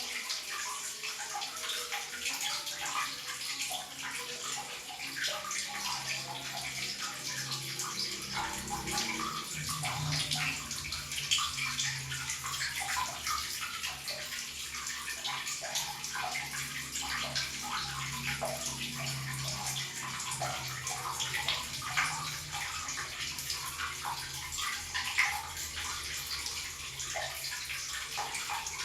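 Tap water running steadily and splashing, with a low hum underneath through the middle stretch.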